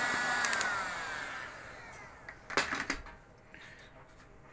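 Heat gun blowing hot air, switched off about half a second in: its fan whine slides down in pitch and dies away over about a second. A couple of short knocks follow about halfway through.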